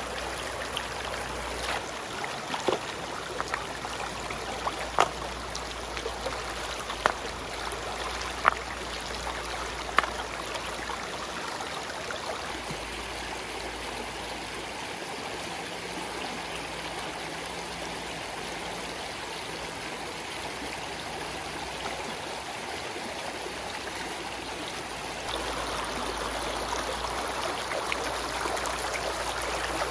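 Shallow stream water running over rocks, with about six sharp knocks of stones being set in place during the first ten seconds; the water grows louder near the end.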